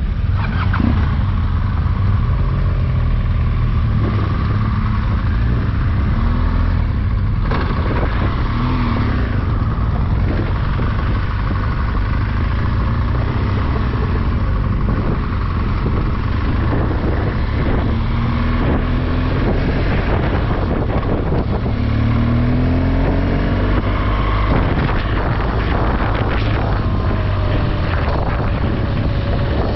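On-board sound of a motor vehicle under way: a steady engine and road rumble mixed with wind noise, the engine pitch rising briefly several times.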